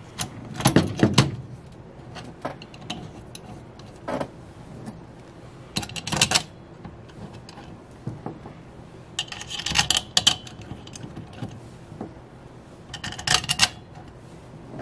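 Small screws being set by hand into the holes of a Chrysler 727/904 automatic transmission valve body. They make short bursts of light metallic clicking and rattling, four clusters a few seconds apart.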